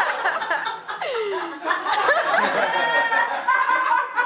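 Audience laughing and chuckling over voices, one of which slides down in pitch about a second in.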